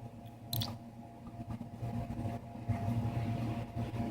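Faint handling noises and a light click about half a second in, over a steady low hum.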